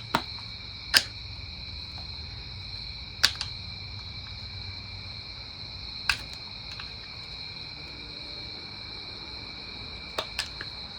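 A handful of sharp, short clicks from a metal pick prying at the plastic battery cover of a dirt bike's display unit, a close pair near the end, over steady cricket trilling.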